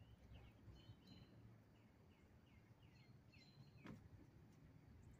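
Faint outdoor quiet with a bird calling a quick series of short, downward-sliding chirps, and a single faint click about four seconds in.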